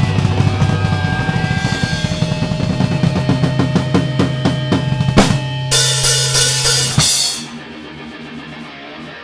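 Drum kit played in a fast, dense beat of kick drum and snare over sustained low guitar and bass notes, ending on a loud hit and a crash cymbal about five seconds in. The band cuts off abruptly about seven seconds in, leaving a much quieter stretch.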